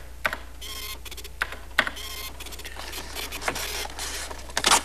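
Keys tapped on a desktop printing calculator, its print mechanism chattering out in short bursts between the key clicks; the loudest burst comes near the end.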